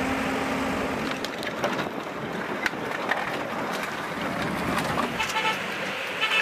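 Busy outdoor commotion: a motor vehicle engine running at first, then scattered knocks and clatter, with a short pitched sound near the end.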